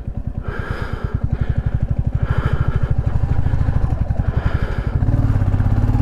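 Motorcycle engine pulling hard up a steep mountain road, its fast, even exhaust beat growing louder; about five seconds in it settles into a steadier, louder note.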